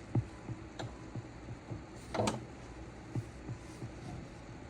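Small clicks and knocks of hand tools being picked up and set down, with a short scrape about two seconds in.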